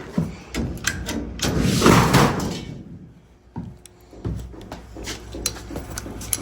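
Sheet-metal ductwork being pulled down: a loud scraping crash about two seconds in, with scattered knocks and clanks before and after.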